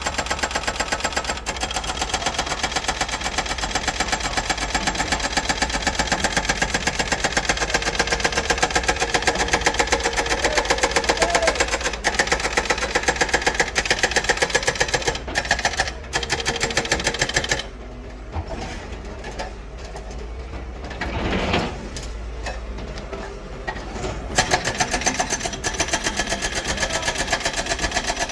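Doosan 255LCV crawler excavator running, its engine beating with a fast, even clatter. For a few seconds past the middle it turns quieter and duller, with one brief louder swell, before the full clatter comes back.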